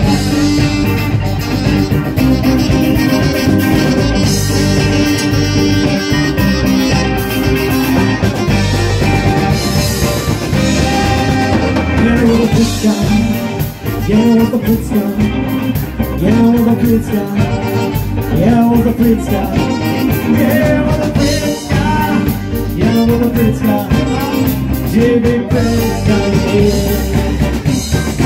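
Live band playing an upbeat rock song on electric guitars, bass, acoustic guitar and keyboard. A lead melody rises above the band from about halfway through.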